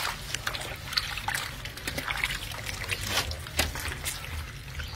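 Water sloshing and dribbling in a steel basin as hands knead and wash green-stained tripe, with many irregular wet squelches and small splashes.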